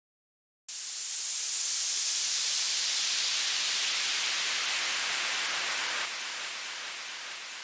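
Synthesized white-noise downlifter: filtered noise hiss that cuts in suddenly under a second in and slowly sweeps down in pitch while getting quieter. Near the end playback stops and a ping-pong delay echo tail fades out.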